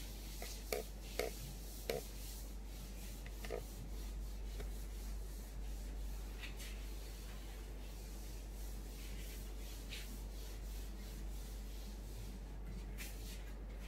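Felt whiteboard eraser rubbing across a whiteboard, wiping off marker writing, with a few light taps in the first two seconds.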